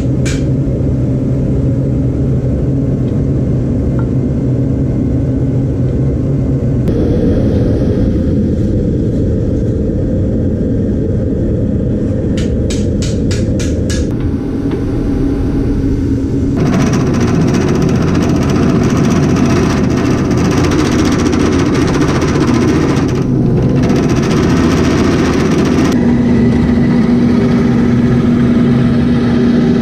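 Wood lathe running while a gouge cuts a spinning walnut handle blank: a steady motor hum under a rough, scraping cutting noise, loudest in the latter part. The sound changes abruptly several times, and a quick run of sharp clicks comes a little before the middle.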